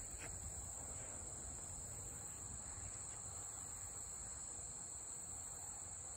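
Steady high-pitched chirring of insects, unbroken, over a faint low rumble.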